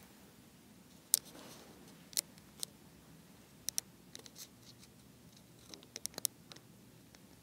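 A dozen or so sharp, irregular clicks and light taps over a quiet room tone, the loudest a little over a second in and a cluster around six seconds in.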